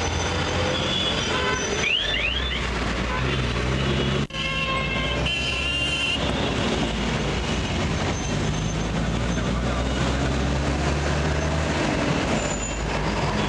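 Vehicle engine and road-traffic noise in heavy traffic, heard from inside a vehicle, with short horn toots now and then. The sound breaks off briefly about four seconds in.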